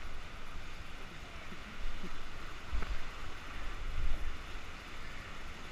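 Wind and water rushing past an inflatable tube towed at speed behind a motorboat, heard through a camera on the rider's head. A few low thumps come about two, three and four seconds in.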